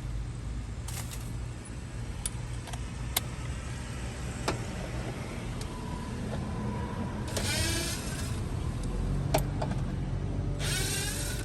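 Scattered clicks and knocks of tools and parts being handled, with a small power tool running in two short bursts of wavering pitch, about seven seconds in and near the end, over a steady low hum.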